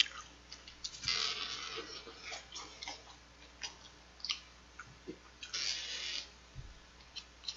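Close-miked chewing and mouth sounds of a person eating smoked pork belly and rice, with scattered small clicks and two short wetter bursts of chewing noise, about a second in and again near five and a half seconds.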